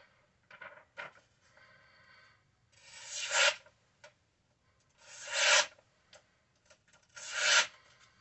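Three long scraping strokes of a Farberware kitchen knife's blade drawn against a rough surface. The strokes come about two seconds apart, each swelling to its loudest and then stopping sharply, with faint scrapes and clicks between them.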